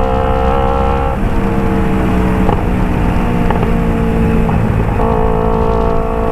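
Kawasaki Ninja 250 FI's parallel-twin engine running through a Phoenix aftermarket exhaust, holding a steady note that drops in pitch about a second in and steps back up about five seconds in.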